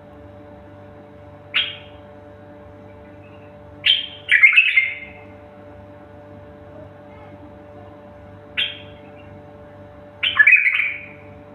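A bird calling with harsh, squawking notes: a short single call, then a longer rasping phrase about two seconds later, the pattern given twice. A steady low electrical hum runs underneath.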